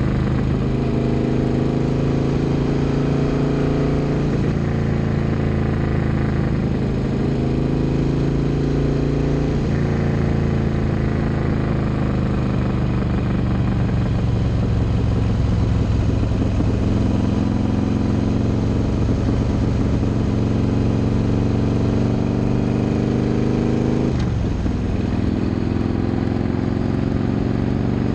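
Motorcycle engine under way, pulling up through the gears: its pitch climbs, drops sharply at a shift about four seconds in, climbs again until about ten seconds in, holds steady for several seconds, then climbs once more and drops at another shift near the end. Wind and road noise run underneath.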